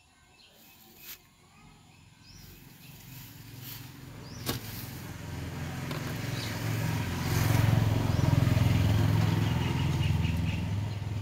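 A motor vehicle passing by: a low engine hum that swells for several seconds, peaks about eight seconds in, then fades. A single sharp click about four and a half seconds in.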